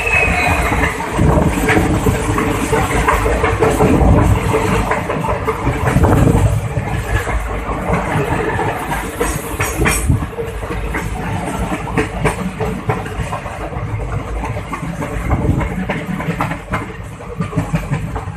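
WDP4 diesel locomotive, an EMD two-stroke V16, passing close alongside with its engine loud for the first six seconds or so. It gives way to the express's coaches rolling past, with wheels clicking over rail joints.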